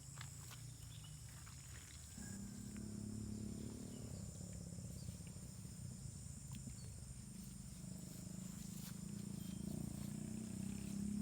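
Steady high-pitched chirring of insects over a low hum, which becomes a steady drone about two seconds in.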